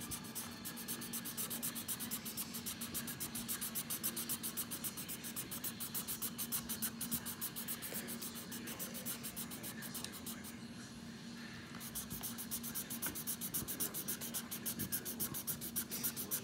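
Felt-tip marker scribbling on paper in rapid, even back-and-forth strokes while colouring in a small area, sped up by fast-forwarding. The strokes pause briefly about ten and a half seconds in, then start again.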